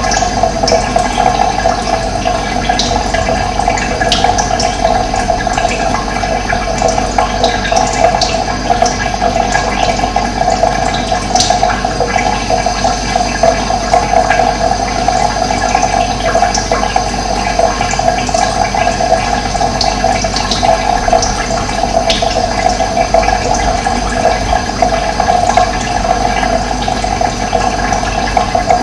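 Steady running water, flowing without pause, with scattered short high bird chirps over it.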